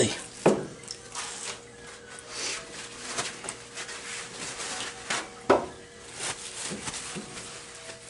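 Paper towels rustling and rubbing over a raw venison quarter on a cutting board at a sink. There are two sharp knocks, one about half a second in as the heavy quarter is laid down, and another about five seconds later.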